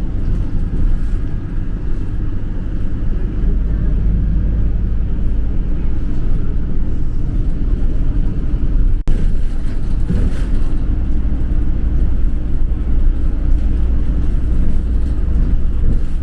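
Steady low vehicle rumble, with a brief break about nine seconds in.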